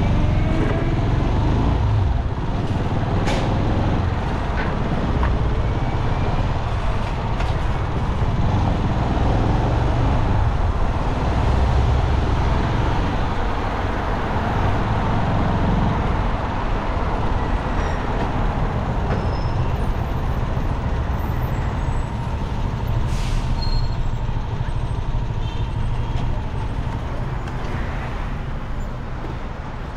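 City road traffic: a steady rumble of engines and tyres from vehicles driving along the street.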